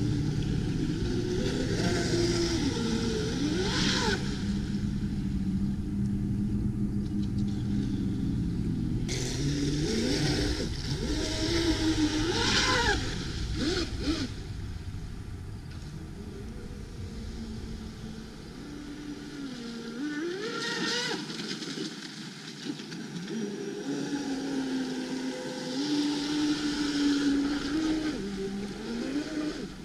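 Traxxas M41 radio-controlled boat's motor running, its pitch rising and falling repeatedly as the throttle is worked, over a steady hiss.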